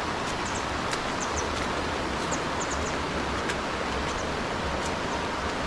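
Steady rush of a swollen, muddy river flowing fast, with a few faint high chirps over it.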